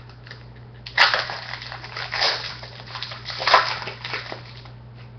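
Foil trading-card pack wrapper being torn open and crinkled: crackling rustles about a second in, again around two seconds and at three and a half seconds, the first and last starting with a sharp snap.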